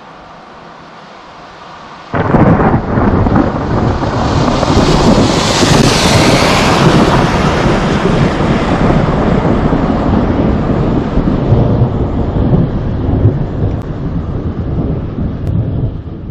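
Thunder: a faint steady hiss, then a sudden loud clap about two seconds in that rolls on as a long, heavy rumble, swelling again around six seconds.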